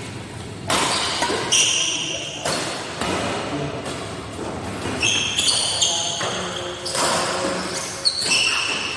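Badminton rally in an echoing indoor hall: irregular sharp racket hits on the shuttlecock, with short high-pitched shoe squeaks on the court floor between them.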